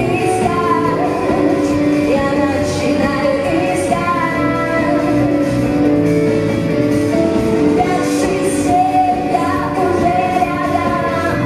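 A pop song played by a live band with guitar and drums, with a woman singing lead in long held notes.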